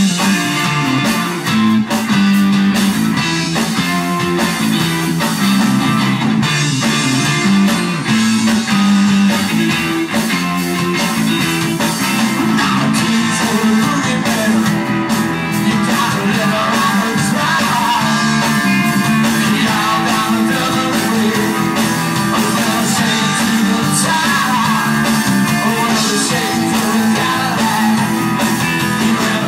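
Live rock band playing: electric guitars and a drum kit with a lead singer singing over them.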